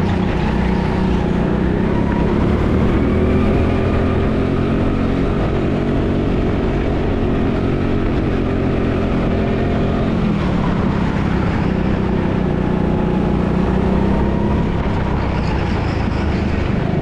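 Go-kart engine running hard on track, heard from the driver's seat, with its pitch dropping about ten seconds in as the kart slows.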